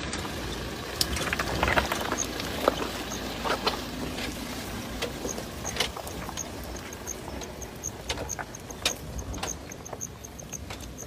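Toyota Fortuner SUV crawling slowly over a loose rocky trail: stones crunch and knock under the tyres in irregular clicks, over a low steady engine rumble. A faint high-pitched tick repeats throughout and comes faster near the end.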